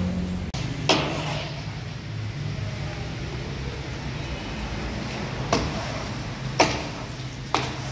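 Workshop noise: a steady low machine hum with four sharp knocks of hard objects, one about a second in and three close together near the end.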